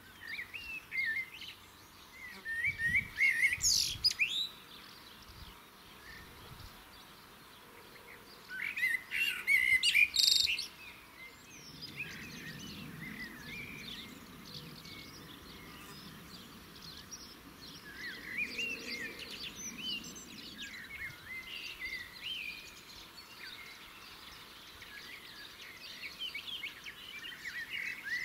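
Small birds chirping and singing in a hedgerow, with two louder spells of calls about three and nine seconds in.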